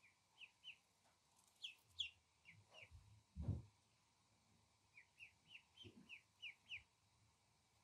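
Duckling peeping: short, high, falling peeps, about three a second, in two runs, one in the first three seconds and another from about five seconds in. A single soft low thump about halfway through is the loudest sound.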